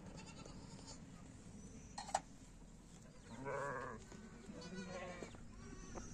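Livestock bleating: a wavering bleat about three and a half seconds in, then a second, fainter one about a second later. A single sharp click comes shortly before them.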